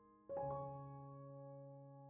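Soft background piano music: a chord struck about a third of a second in, ringing on and slowly fading.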